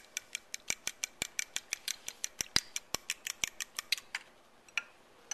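A metal fork beating an egg in a small glass bowl, clicking against the glass about five or six times a second. It slows to a couple of separate taps near the end.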